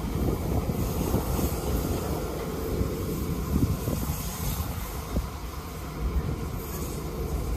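Caledonian Railway 812 Class 0-6-0 steam locomotive moving off slowly, with a steady low rumble from the engine and its wheels on the rails.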